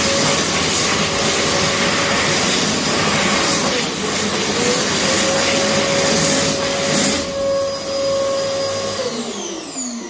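World Dryer Airforce high-speed hand dryer blowing, a rush of air over a steady motor whine. About seven seconds in the rush of air lessens, and near the end the motor winds down with a falling whine.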